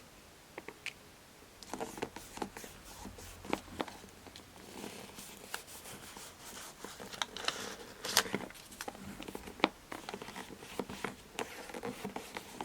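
Hands working with craft materials: scattered light clicks and taps with rustling, and a couple of sharper knocks about eight and nine and a half seconds in.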